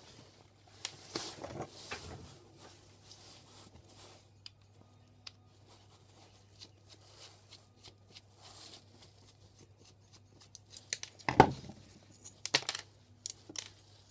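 Small scrap metal parts and hand tools being handled: scattered light clicks and scrapes, with a louder clatter about eleven seconds in and sharp clicks just after. A faint steady low hum runs underneath.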